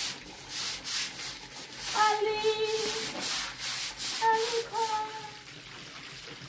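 A yard-cleaning tool scrapes across the ground in a steady rhythm of strokes. A woman's voice sings two long, drawn-out notes of a Zulu song over it.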